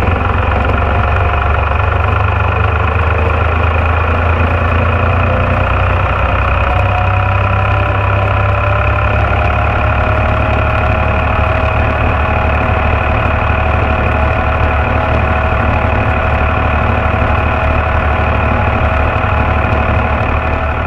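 Ford 2910 tractor engine running steadily under load, pulling two loaded hay wagons along the road. A whine rises in pitch over the first half, then holds steady.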